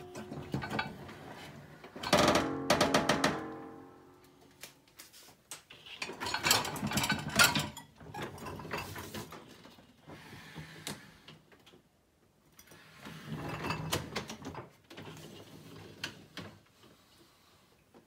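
Smeg dishwasher racks rolling on their rails and rattling, with dishes and cutlery clinking and briefly ringing, in three bursts with quiet gaps between them.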